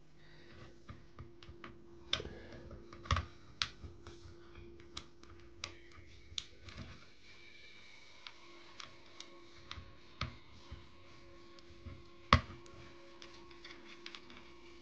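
Scattered clicks and light knocks from hands handling a small desktop PC's internals while its cooling fan is disconnected, over a faint steady hum. The sharpest knock comes about 12 seconds in.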